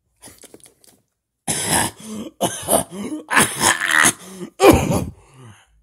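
A person coughing and hacking in a string of loud, rough fits, a staged choking fit on food, after a few faint clicks.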